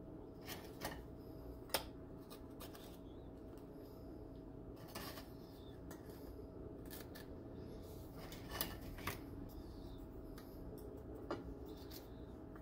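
Faint, scattered light taps and clicks of graham crackers being picked up and laid into a glass baking dish, over a steady low hum.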